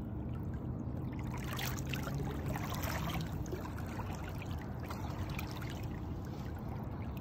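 River water lapping and trickling among the rocks at the shoreline, a steady wash with small splashes. A low steady hum sits under it for the first three seconds or so.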